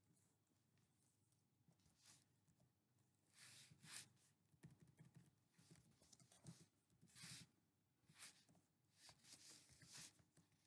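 Near silence: faint room tone with a few soft, brief hissing rustles.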